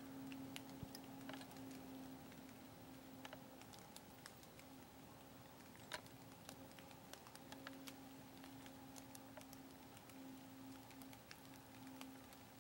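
Near silence: a faint steady hum with scattered light ticks and clicks, one a little sharper about six seconds in.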